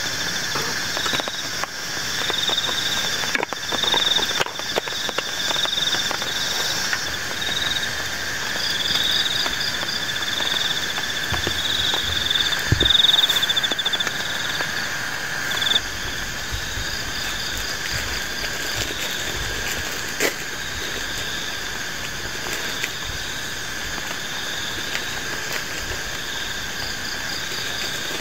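Night chorus of frogs and insects: steady pulsing trills and repeated calls, with scattered light clicks and knocks, mostly in the first half.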